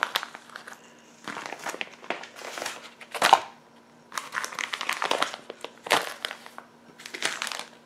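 Plastic vacuum-sealer bags of meat crinkling and rustling as they are picked up and shuffled about, in several bouts with short pauses between.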